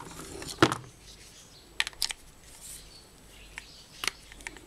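Scattered sharp clicks and light knocks of a screwdriver and the trimmer motor's plastic fan part being handled and set down on a workbench, the loudest about half a second in and a quick cluster near the middle.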